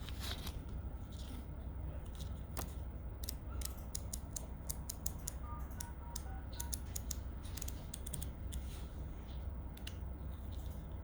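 A paper manual being handled: scattered crisp clicks and rustles of paper, over a low steady hum.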